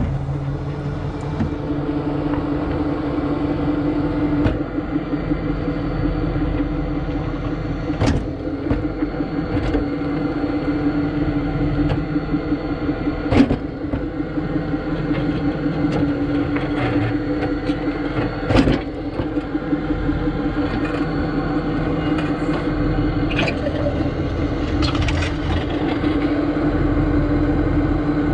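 Tow truck engine running steadily while the truck reverses slowly over a dirt road, with a few sharp knocks and rattles from the wheel-lift jolting on the bumps.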